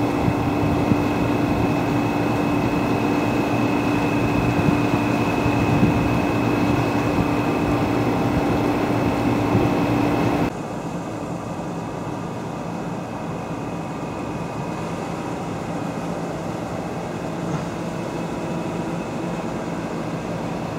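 Steady machinery hum with a constant low tone and a fainter high whine. About halfway through it drops abruptly to a quieter, lower hum.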